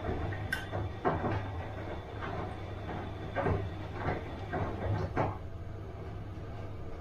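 Bosch washing machine on its wash cycle: the drum tumbling the wet laundry in a series of sloshing swishes over a steady low hum. The sloshing stops about five seconds in, leaving only the hum, and there is one sharp click near the start.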